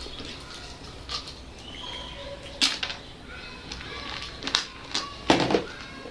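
Eating at a table: several sharp clicks and clinks, with a louder crunching burst about five seconds in, over faint short high chirps in the background.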